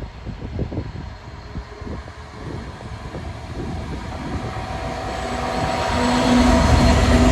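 Class 66 diesel freight locomotive approaching, its engine growing steadily louder with a steady engine note that is loudest near the end.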